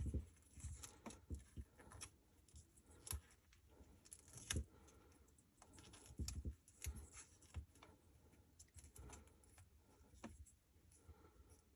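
Faint, scattered clicks and rustles of hands handling wires and electrical tape.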